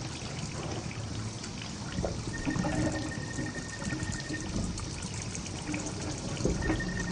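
Bathroom faucet running a steady stream into the sink basin, with a faint thin high tone that comes and goes.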